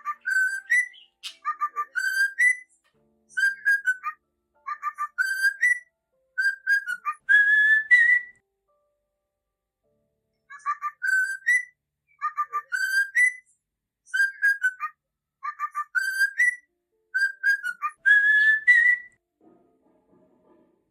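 Cockatiel whistling a tune: quick runs of short whistled notes, each group finishing on a rising note, with the same phrase sung twice and a pause of about two seconds between.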